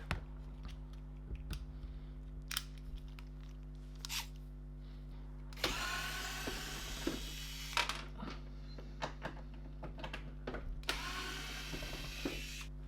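Cordless drill-driver run twice, each time for about two seconds, unscrewing the casing of a dehumidifier, with small clicks and knocks of handling in between.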